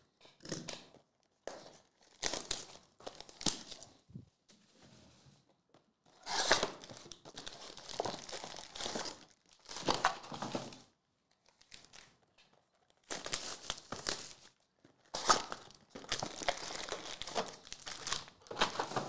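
Plastic shrink wrap being torn and pulled off a trading-card hobby box, crinkling and tearing in irregular bursts with short pauses, then the card packs inside being handled.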